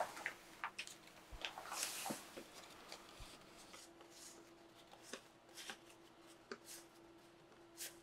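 A stack of US hundred-dollar bills counted by hand: faint, crisp rustles and flicks of paper notes. They come thickly for the first two seconds or so, then one flick about every second.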